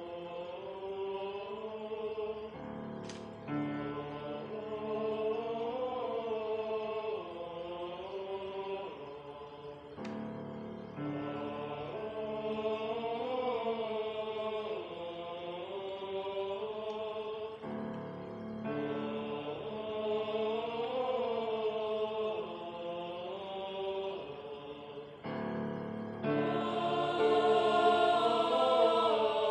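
A mixed youth choir singing in several-part harmony, in long sustained phrases with short breaks between them, growing louder near the end.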